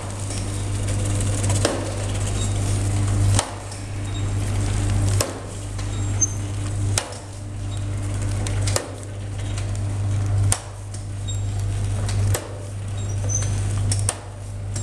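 Powder sachet packing machine with a disc filler running: a steady low hum, broken by a sharp click about every second and three quarters as it cycles through filling and sealing sachets of ORS powder.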